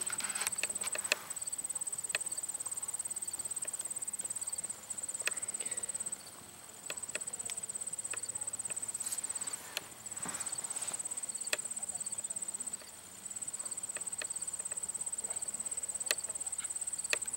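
Field insects trilling: a high-pitched, rapidly pulsing chirp that runs on with a couple of brief pauses, with scattered faint clicks over it.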